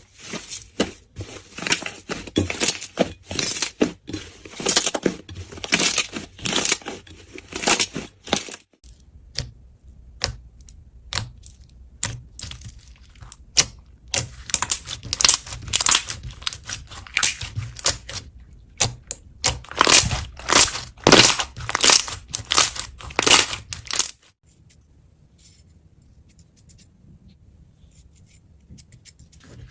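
Slime being squeezed and stretched by hand, with dense runs of sticky crackles and pops. The sound changes abruptly about a third of the way in, and again near the end, where it drops to faint handling.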